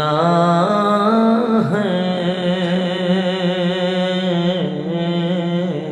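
One man's voice singing an Urdu devotional verse (sher) unaccompanied, drawing out long held notes with a wavering vibrato that steps up in pitch about a second in.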